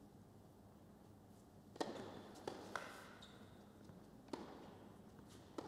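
Tennis ball struck by rackets in a rally on an indoor hard court: a serve about two seconds in, then returns every second or so, each a sharp pop. A short high squeak sounds just after the second hit.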